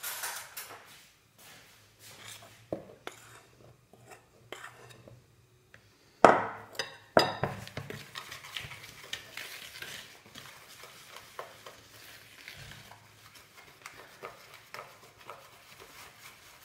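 Metal balloon whisk stirring and scraping in a plastic mixing bowl as flour is worked into a soft butter-and-egg mixture for tart pastry dough, with a cluster of loud sharp knocks and clinks about six to seven seconds in.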